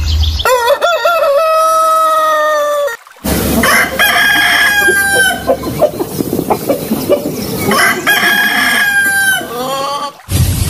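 Roosters crowing: three long cock-a-doodle-doo crows. The first comes about half a second in, and after a brief break two more follow a few seconds apart.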